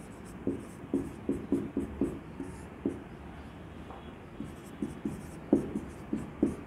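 Someone writing by hand: a pen or marker scratching out short, irregular strokes, a few a second.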